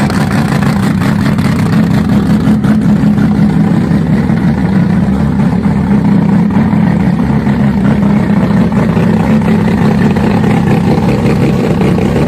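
A loud engine running steadily at an even speed, without revving up or down.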